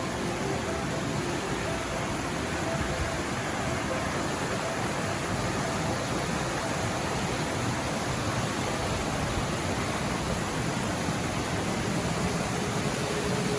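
Steady, even rush of flowing mountain-river water.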